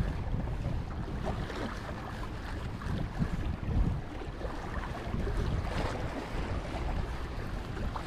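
Wind buffeting the microphone in uneven gusts, over the wash of sea water against the jetty.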